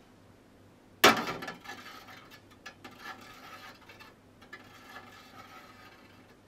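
A single sharp clink about a second in, ringing off quickly, as something drops into a glass tumbler, followed by faint irregular ticks and crackles.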